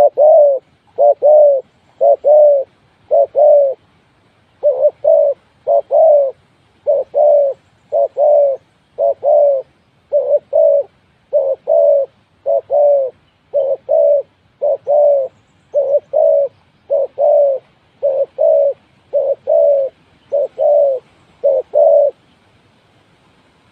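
Spotted dove cooing over and over in short notes, mostly in close pairs, stopping near the end.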